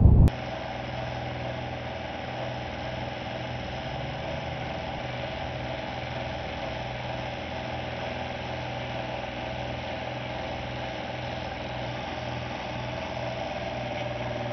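Engine of a small tracked post-driving rig running at a steady idle, an even hum with no hammer strikes. A brief rush of wind on the microphone cuts off a moment in.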